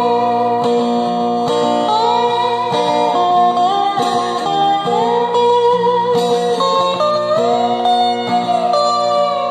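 Steel guitar played with a slide bar: picked notes and chords that glide up and down in pitch as the bar moves, forming a slow melody.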